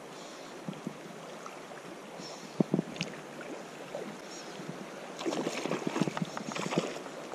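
River current rushing and lapping around a wading angler's legs, with irregular splashes and knocks close by, busiest a couple of seconds before the end.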